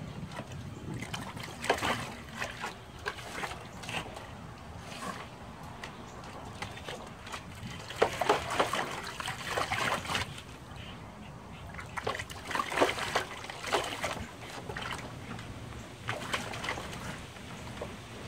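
A dog pawing and splashing the water in a plastic tub, in irregular spells of splashing and sloshing, busiest about eight and thirteen seconds in.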